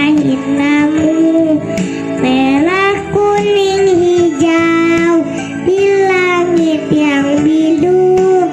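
A high voice singing a slow melody over instrumental accompaniment, with long held notes that slide up and down in pitch.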